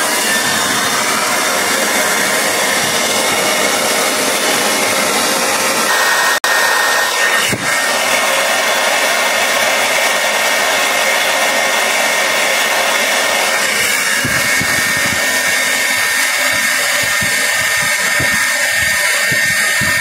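Hot air rework gun blowing steadily, heating the graphics chip on a laptop motherboard.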